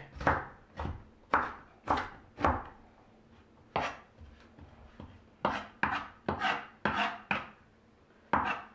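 Kitchen knife chopping onion on a wooden cutting board: about a dozen sharp, unevenly spaced knock strokes, with a short pause about halfway through, as the diced onion is minced finer.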